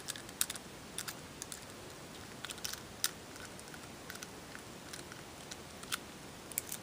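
Light, irregular metallic clicks and ticks of a pick or key working inside an old Yale half-warded lock, a dozen or so scattered sharp clicks.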